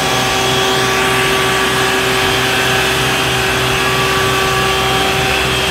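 Isuzu water tanker truck's engine and pump running steadily while its roof-mounted water cannon sprays a jet: a constant hiss over a steady mechanical hum.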